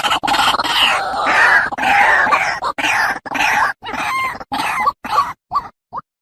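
White-breasted waterhen calling: a loud, dense run of wavering calls that breaks up into short separate calls after about three seconds and stops just before the end.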